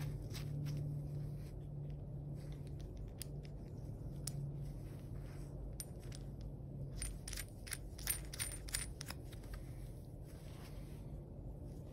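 Light metallic clicks and clinks from a threaded metal cord strain-relief fitting and its locknut being handled and turned in gloved hands. The clicks come scattered, then in a quick cluster about two-thirds of the way through, over a low hum that fades out about halfway.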